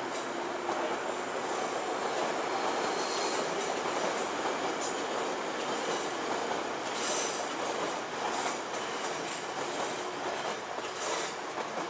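Tokyo Metro Marunouchi Line train crossing an open-air bridge, with steady wheel-on-rail noise and sharp high-pitched clicks and squeals from its wheels. It is loudest about seven seconds in.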